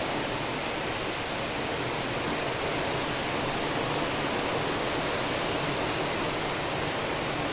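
Very heavy rain pouring down in a steady, even roar of a downpour, with no let-up.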